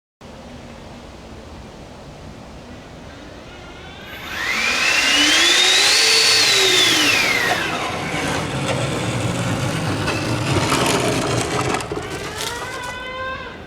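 Twin 80mm electric ducted fans of an RC 737-300 model running: a low steady hum, then about four seconds in they spool up to a loud whine that rises in pitch, peaks and falls back over about three seconds, settling into a steady rushing whir. Near the end the whine starts rising again.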